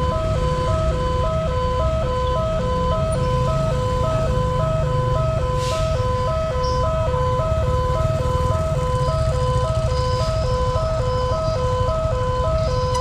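Railway level-crossing warning siren alternating rapidly between a lower and a slightly higher tone, about one and a half times a second, over a steady low rumble.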